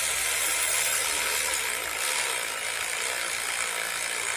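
Air ratchet running steadily with a loud hiss of exhausting compressed air, driving a new spark plug into the cylinder head.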